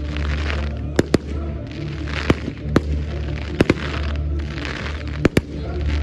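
Fireworks display with aerial shells bursting: about eight sharp bangs, most of them in close pairs, with crackling hiss between them.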